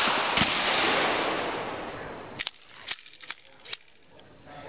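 Gunfire on an outdoor shooting range: a loud shot at the start with a long fading echo, then four short sharp cracks about half a second apart near the middle.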